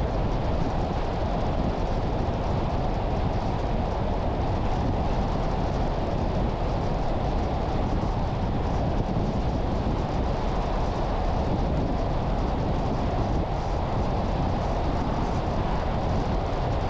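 Steady road noise from a car driving: tyre and wind noise, an even rumble with most of its weight low and no change in pace.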